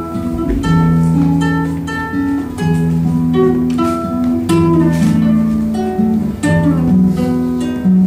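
Acoustic guitar playing an instrumental passage: a steady run of picked notes and chords without singing.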